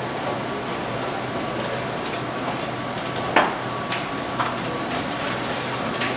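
Sea bass fillet sizzling skin-down in a very hot frying pan, a steady hiss as the skin crisps, with a few sharp knocks of crockery and pans, the loudest about three and a half seconds in.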